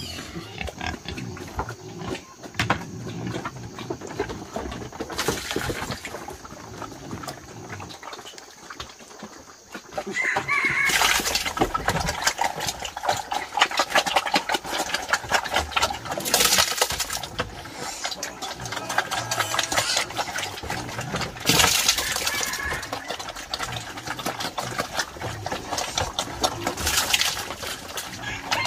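Wild boars grunting and feeding, with dense clicking and rustling that gets louder about ten seconds in.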